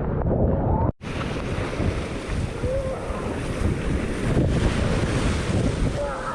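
Storm wind buffeting the microphone over crashing ocean surf, a dense low rumble of wind and waves. The sound drops out for an instant about a second in, then resumes.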